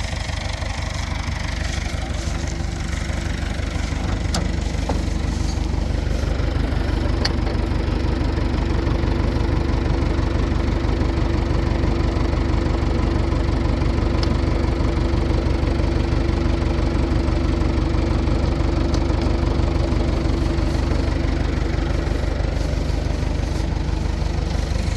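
Combine harvester running steadily, getting a little louder with a steady hum settling in a few seconds in.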